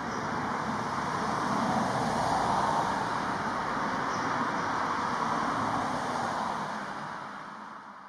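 Steady rumble of road traffic, swelling a couple of seconds in and then fading away near the end.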